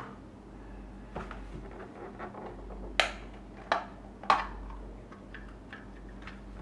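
Handheld meter's plastic case being opened: scattered small ticks, then three sharp plastic clicks about three, three and a half, and four and a half seconds in as the case halves come apart.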